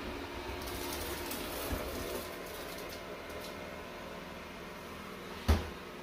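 Yeedi Vac Max robot vacuum running on its low power setting across a hardwood floor: a steady, fairly quiet motor hum with a few light ticks. A single sharp knock comes about five and a half seconds in.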